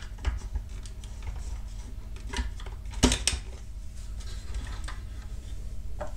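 Plastic parts of a 1/16 Bruder Cat compactor model being handled and fitted together: scattered light clicks and knocks, the sharpest pair about three seconds in, over a steady low hum.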